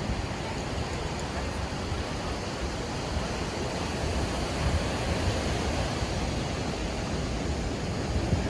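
Steady wash of sea surf on a sand beach, an even rushing noise with a low rumble underneath.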